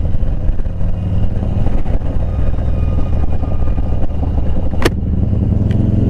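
V-twin cruiser motorcycle engine running steadily at low road speed. Two sharp clicks come about a second from the end, the first much louder.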